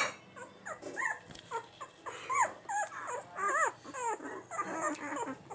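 Week-and-a-half-old German Shorthaired Pointer puppies squeaking and whimpering in a string of short calls that rise and fall in pitch, two or three a second.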